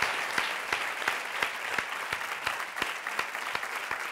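Studio audience applauding, a dense patter of many hands clapping that eases off a little toward the end.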